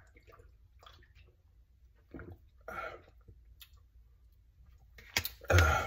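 A man drinking from a plastic shaker bottle, with a few soft gulps a couple of seconds apart. A short, much louder noise comes near the end.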